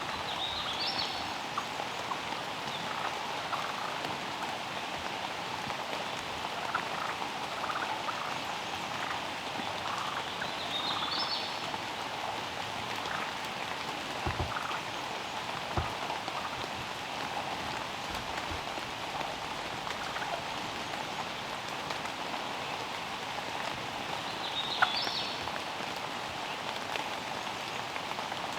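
Steady rain pattering outdoors, with scattered drop ticks. A few short, high, rising chirps sound about a second in, around the middle and near the end, and there are a couple of dull low thumps midway.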